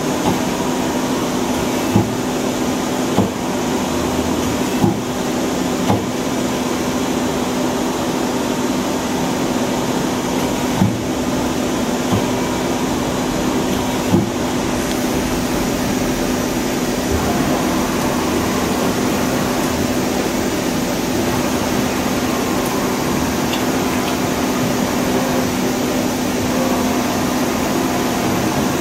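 Hyundai Kia SKT-250MS CNC turning center running, with a steady hum and a strong steady tone while its tool turret moves through the work area. Six short, sharp clunks come in the first fifteen seconds.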